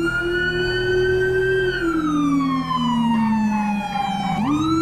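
Police escort siren wailing. It holds a high note, slides slowly down, then sweeps back up sharply near the end.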